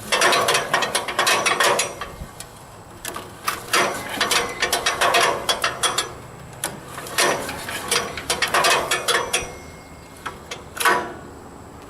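Recoil starter of a Troy-Bilt wood chipper's Briggs & Stratton 250cc engine pulled three times, the choked engine turning over with a clattering ratchet sound but not starting on this cold start after years of storage. A single sharp click near the end.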